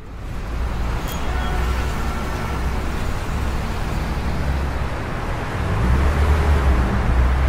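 City traffic noise: a steady wash of passing road vehicles with a deep rumble, fading in at the start.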